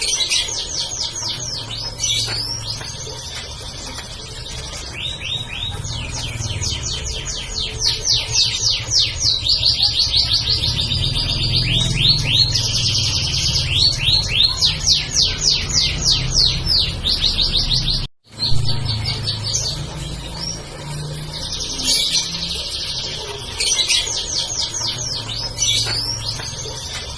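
Domestic canary singing a long, fast song of rolling trills, each a quick run of repeated high notes, over a low background hum. The sound cuts out for an instant about two-thirds of the way through.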